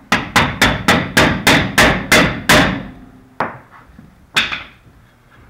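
Rapid hammer blows on a stuck rear brake drum to free it from the hub, about nine quick strikes at roughly three a second, each ringing briefly, then two slower blows. The drum is stuck fast, probably never taken off before.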